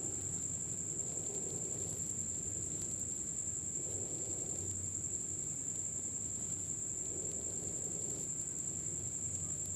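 Soft, faint scraping and shuffling of a spatula stirring poha in a nonstick kadai, over a steady high-pitched whine.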